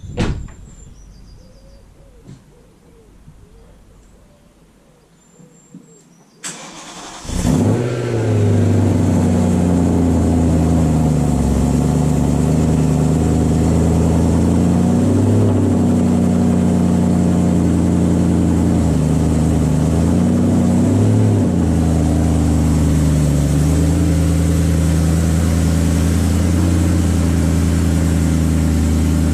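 A motor-driven machine starts up about seven seconds in, then runs steadily with a loud, low, even hum.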